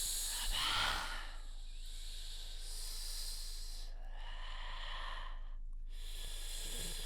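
A person imitating ocean waves with the mouth: breathy hissing swells that rise and fall like surf washing in and drawing back, with a short break in the hiss about six seconds in.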